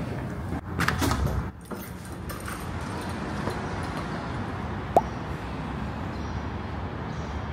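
Quiet city street ambience: a steady low hum of distant traffic, with a brief rising chirp about five seconds in.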